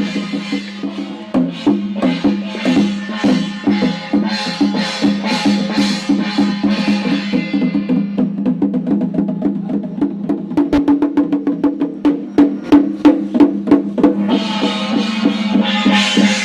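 Chinese temple ritual music: wood block and drum strokes over a steady held tone. Through the middle the strikes come in a fast, even run, and the fuller ensemble sound returns near the end.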